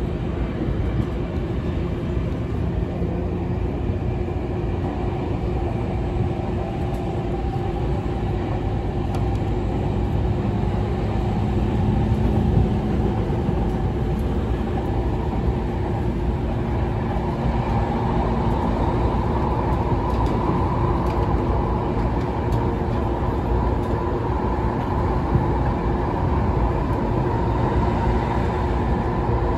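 Electric Narita Line train running, heard from inside the carriage: a steady rumble of wheels on rails with motor hum. It grows a little louder from about ten seconds in, and a higher tone strengthens in the second half as the train gathers speed.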